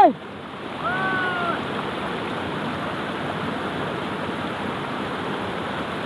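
Mountain stream rushing and splashing over boulders at the head of a waterfall, a steady rush of water. About a second in comes one short, slightly falling call.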